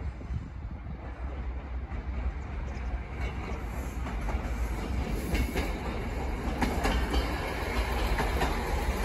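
RA-2 diesel multiple unit approaching and passing close by, getting steadily louder. From about three seconds in, its wheels clack over the rail joints.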